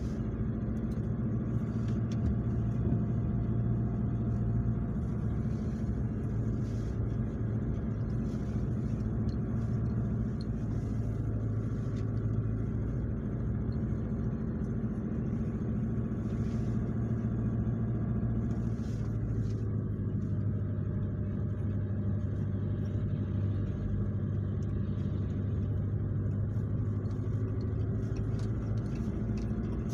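Pickup truck driven slowly downhill on an icy road, heard from inside the cab: a steady low engine hum and tyre rumble, with a few faint clicks scattered through, the tyres fitted with snow chains for the ice.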